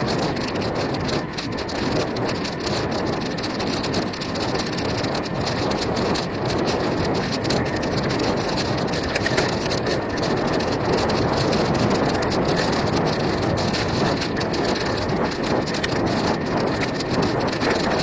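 Electric mountain bike riding a dirt forest trail: a steady rough rushing and crackling of the tyres on the dirt and the shaking, jolted camera.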